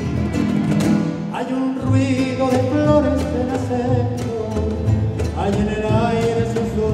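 Live tango band of acoustic guitars, violin and double bass playing, the bass notes keeping an even pulse under the melody.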